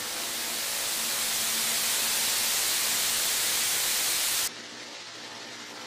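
Television static hiss, growing louder over the first two seconds, then cutting off abruptly about four and a half seconds in to a much quieter hiss.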